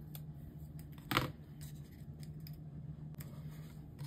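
Scissors snipping paper: one sharp click about a second in and several lighter clicks.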